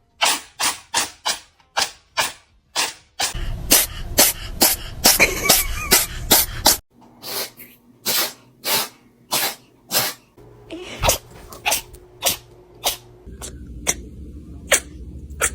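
A cat sneezing over and over in a long fit of short, sharp sneezes, roughly two a second.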